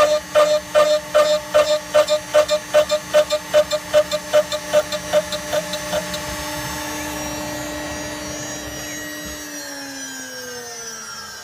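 ShopBot CNC router spindle at 18,000 RPM, its 4 mm two-flute end mill dry-cutting low-carbon steel on a trochoidal path: a rhythmic chatter of about three cuts a second over the spindle's steady whine. The cutting stops about six seconds in, and near the end the whine falls in pitch as the spindle winds down.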